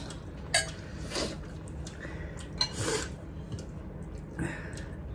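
A metal spoon clinking against plates and bowls at a meal, a few short sharp clinks with the sharpest about half a second in, and soft scraping and rustling between them.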